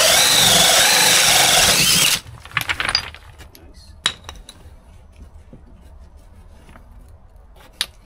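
A DeWalt cordless drill spinning a hole saw through the house siding. Its motor whine wavers in pitch as the cut loads it, then stops abruptly about two seconds in. A few light clicks and knocks follow.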